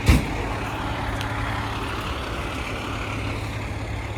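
Large fire truck engine running steadily with a low drone. A short, loud burst comes right at the start.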